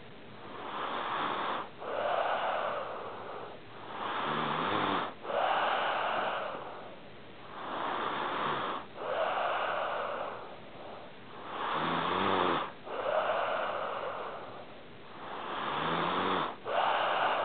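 A sleeping pet snoring in slow, regular breaths, about one every four seconds. Each breath comes in two noisy halves split by a brief catch, and several carry a low, buzzing snore.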